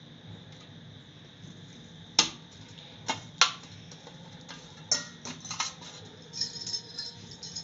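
A spoon clinking and knocking against a pan of warm coconut oil with camphor melting in it: a few separate sharp knocks, then a quicker run of lighter clinks near the end.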